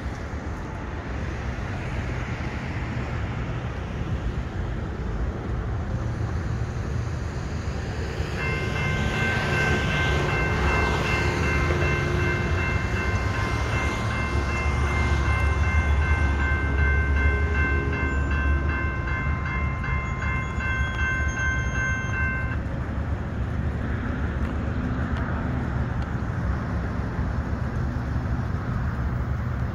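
Railroad crossing bell starts ringing about eight seconds in as the crossing signals activate, with even, steady strikes, and falls silent a few seconds before the end as the gate arm comes fully down. A low rumble runs underneath and is loudest midway.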